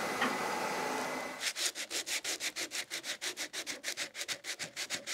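A small wooden workpiece being hand-sanded with quick back-and-forth strokes, about six a second. The strokes start about a second and a half in, after a steady hiss.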